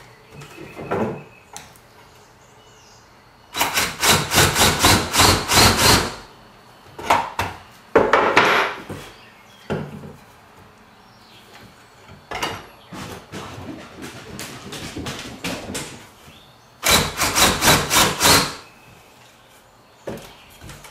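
DeWalt cordless drill boring pocket holes into pine 2x4 boards: two drilling runs, a longer one a few seconds in and a shorter one near the end, with a brief burst of the drill in between. Light knocks of the boards being handled on the bench come between the runs.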